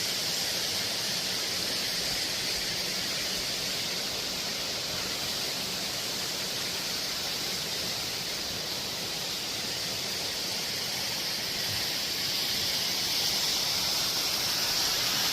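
Steady rush of a waterfall and its flowing water, an even hiss with no breaks.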